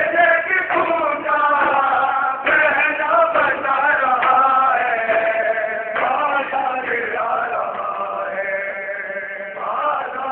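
A group of men chanting a noha, a Shia mourning lament, in unison, with long held and gliding notes.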